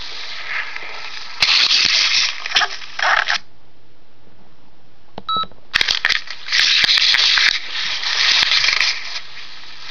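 Paper rustling and handling noise close to the microphone in two spells, as the open manual's pages are handled. A short electronic beep about five seconds in, in a quieter gap between them.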